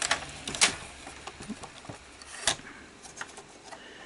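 Scattered light clicks and taps of a small screwdriver and fingers on the metal chassis and cassette compartment of an opened Sony SL-2300 Betamax VCR, as the tape-guide screws are tweaked for alignment. The sharpest taps come near the start, about half a second in, and about two and a half seconds in.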